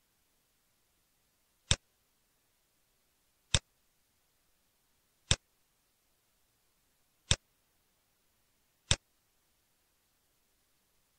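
Five single computer mouse clicks, spaced about one and a half to two seconds apart, over an otherwise near-silent background.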